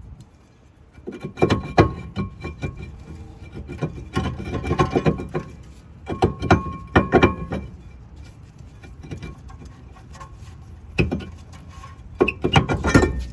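Metal brake parts being handled: bursts of clanking and clinking, several leaving a brief ringing note, with pauses between them.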